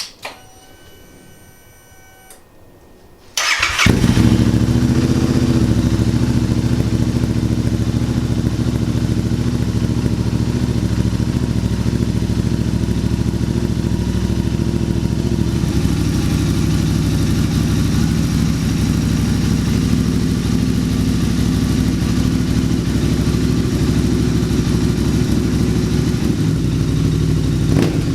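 A faint click and a brief steady electric whine, then a Royal Enfield 650 parallel-twin engine starts about three and a half seconds in and idles steadily through a TEC Stinger 2-1 exhaust with no baffle fitted, giving the loudest, freest-flowing version of its note.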